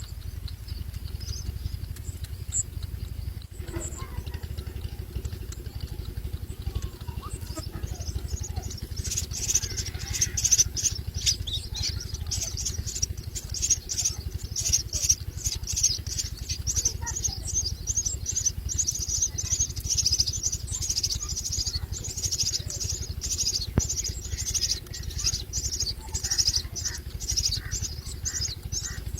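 Myna chicks begging, a rapid run of high-pitched calls, several a second, that starts about eight seconds in and keeps going, over a steady low rumble.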